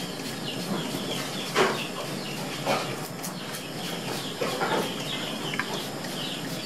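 Hand spray bottle spritzing evaporated milk onto proofed bread dough, a few short sprays a second or so apart. Birds chirp and chickens cluck in the background.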